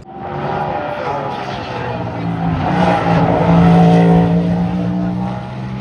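GTP prototype race car engine running hard as the car passes on the track, swelling to its loudest about four seconds in and easing off slightly.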